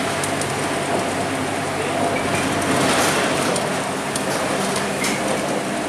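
Inside a moving Scania K230UB single-deck bus: its nine-litre five-cylinder diesel running steadily under a wash of tyre and road noise on a wet road, with light rattles from the body and fittings. The road noise swells briefly about three seconds in.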